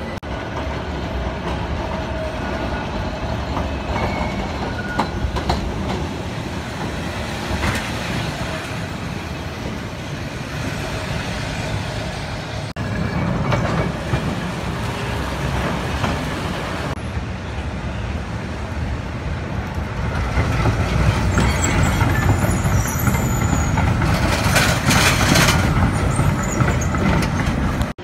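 Milan street trams running on rails over wet cobbles: first a modern articulated Sirietto tram passing, then a vintage tram rolling by. The sound is a steady rumble of steel wheels on rail that grows loudest from about two-thirds of the way in, with rattling and some high squealing of wheels on the track.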